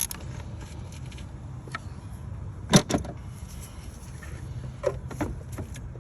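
A few sharp clicks and knocks of tools and parts being handled, the loudest pair about three seconds in, over a steady low hum.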